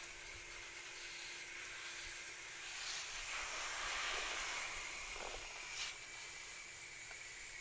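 Water spraying from a garden hose nozzle onto leafy plants. The spray grows louder for about two seconds in the middle, and there is a single sharp click about six seconds in.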